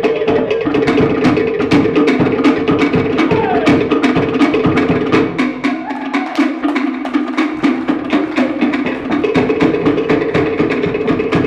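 Live Cook Islands drum ensemble playing a fast, even beat of sharp wooden knocks on slit drums over a deeper skin drum. The deeper drumming drops out for a few seconds around the middle while the wooden knocking carries on.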